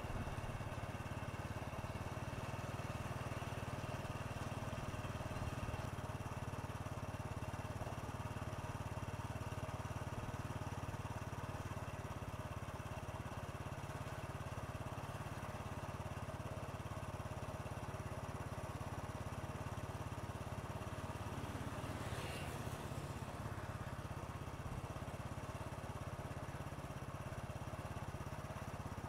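A vehicle engine running steadily at an even pitch, with a brief hiss about 22 seconds in.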